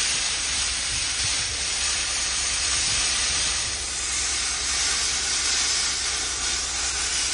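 Copper slag grit blasting: compressed air and abrasive rushing out of a blast nozzle onto a steel ship hull in one loud, steady hiss, with a steady low rumble underneath.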